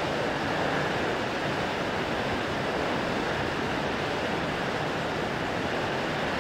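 Steady rushing of Shōmyō Falls, a very tall waterfall, its water pouring down without a break.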